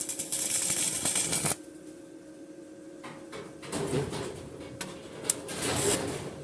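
Stick (MMA) welding arc from a small inverter welder crackling and hissing in short runs: one burst of about a second and a half that cuts off sharply, then two briefer bursts later on as the arc is struck again.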